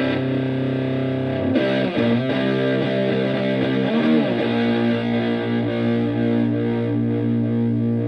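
Electric guitar, a Stratocaster, played through a Tone Bender MkI-style fuzz pedal into a Fender Twin Reverb-style amp. Thick, fuzzy sustained notes change twice in the first half, then the last one is held ringing.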